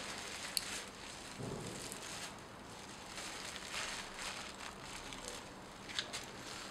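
Fire under an empty metal comal crackling faintly: a steady hiss with a few sharp ticks, one about half a second in and a pair near the end.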